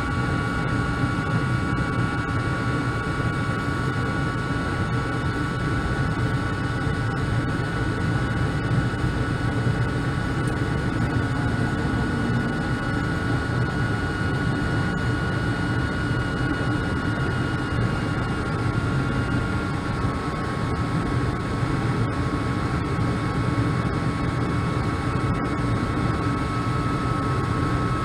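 Carrier furnace running with a steady airy rumble and a high-pitched whine over it, the whine drifting slowly lower in pitch. The whine does not come from the inducer blower motor.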